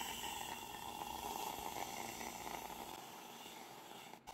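Aerosol can of spray whipped cream hissing and sputtering as cream is pressed out into a bowl. The hiss weakens about three seconds in.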